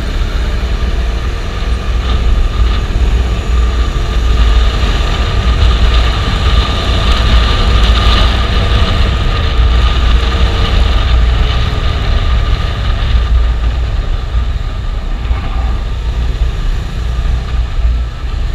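Bajaj Dominar 250's single-cylinder engine running steadily on the move, with heavy wind rumble on the microphone.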